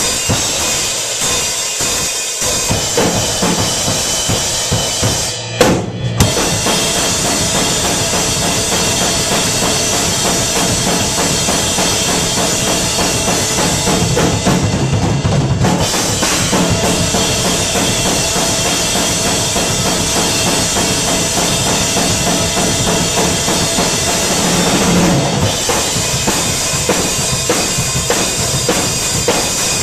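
A custom Shine drum kit played hard through a rock song: bass drum, snare and cymbals in a driving beat, with the song's other instruments sounding underneath from about two seconds in. There is a brief break about five and a half seconds in.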